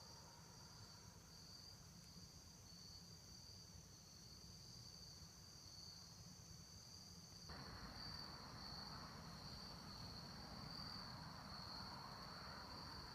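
Faint, steady high-pitched insect trilling, the evening chorus of crickets in the woods, with a faint hiss added about halfway through.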